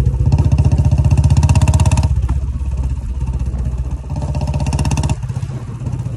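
Royal Enfield Bullet BS4 single-cylinder engine heard at the exhaust, revved up twice and dropping back between the blips. The throttle blips build up pressure in the exhaust for backfire pops.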